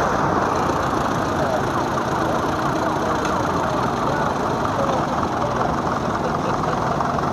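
Old farm tractor engines running steadily together as a convoy of vintage tractors drives slowly past.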